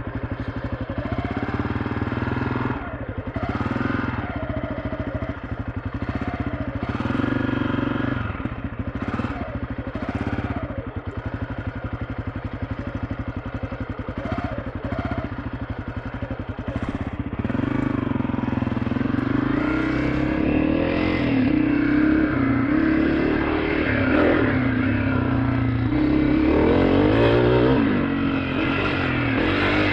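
2023 Honda CRF250F's single-cylinder four-stroke engine being ridden on a trail, revving up and down again and again as the throttle is worked. From a little past halfway it runs louder and steadier.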